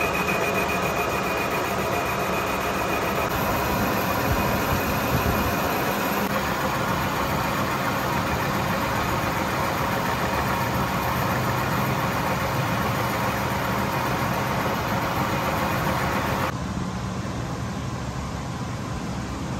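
Metal lathe turning a cast iron piston blank, the cutting tool taking a cut: a steady machine whirr with faint steady tones. About three-quarters of the way through it turns quieter and duller, as the cut stops.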